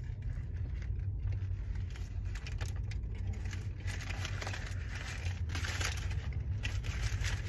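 Low, steady hum of a car idling, heard inside the cabin, with close paper-wrapper rustling and chewing as a sandwich is eaten.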